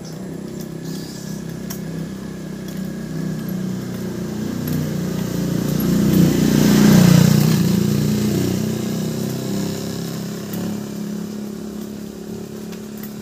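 A motor vehicle's engine passing by: it grows louder as it approaches, is closest about halfway through, then fades away.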